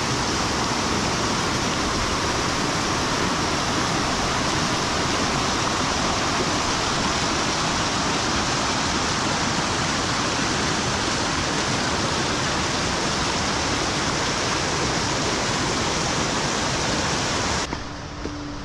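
Steady rushing of a mountain stream, a constant wash of water noise with no breaks. It cuts off abruptly near the end.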